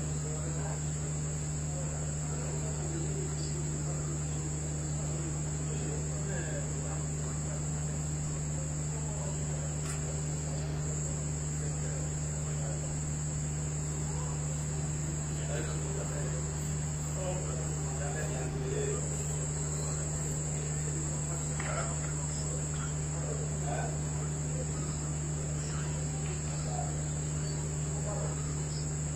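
Crickets trilling steadily on one continuous high note, over a low steady hum, with faint distant voices now and then.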